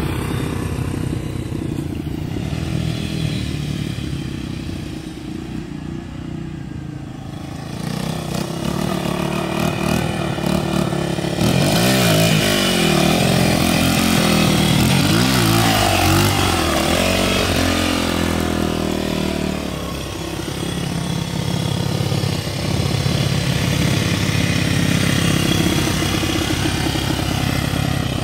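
Small dirt bike engine running as the bike rides along the street. It fades as the bike moves off, then revs up and down in rising and falling sweeps about halfway through as it passes close, and runs steadily again near the end.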